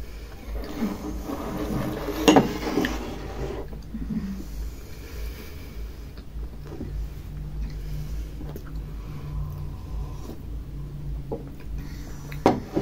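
Two people chewing bites of a cream-filled donut, with soft mouth and handling noises and a sharp click about two seconds in, over a low steady room hum.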